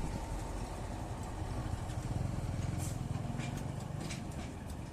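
Combine harvester's engine running steadily with a fast, pulsing low rumble, and a few sharp clicks or rattles over it around the middle.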